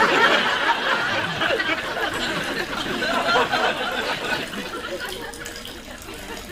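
Studio audience laughing, starting suddenly, loudest in the first couple of seconds, then dying away over the next few seconds.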